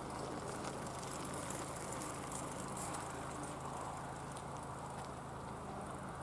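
Quiet outdoor ambience with a bicycle rolling past close by, fine light ticking coming and going over a steady low background.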